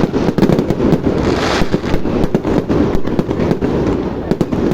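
Fireworks show: a rapid barrage of bangs and crackling, many reports in quick succession.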